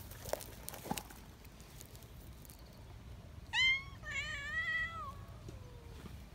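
Young cat meowing: a short, sharp rising cry about three and a half seconds in, then a longer wavering meow that trails off downward.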